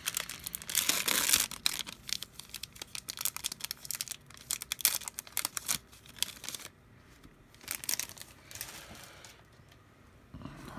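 A trading card pack's wrapper being torn open and crinkled. The crackling is busiest for the first six seconds or so, followed by a few shorter crinkles.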